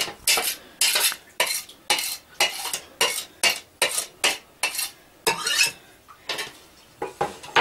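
A metal kitchen utensil scraping and knocking against a hard surface in short, quick strokes, about two to three a second, with a short pause about two-thirds of the way in.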